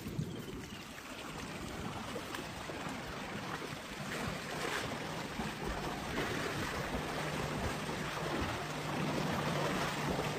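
Water sloshing and splashing as elephants, a small calf among them, wade through a shallow waterhole, with wind buffeting the microphone. A low steady hum comes in about seven seconds in.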